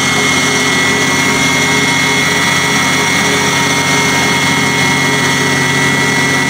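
Concrete mixer-pump system of a 3D construction printer running steadily: a loud, even machine drone with a constant high whine over it.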